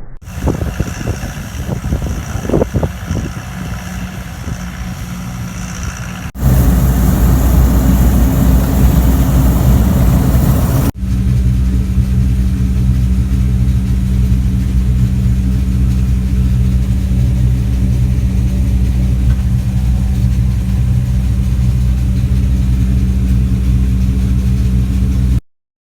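Farm machinery engine running steadily, heard in three shots that cut abruptly about six seconds in and again near eleven seconds. The middle shot is the loudest, and the first has some clattering knocks over the engine.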